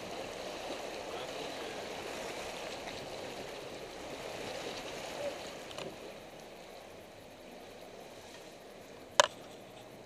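Water swishing and splashing around a 4x4's tyres as it drives up a shallow, stony stream bed, easing off after about six seconds. A single sharp click comes near the end.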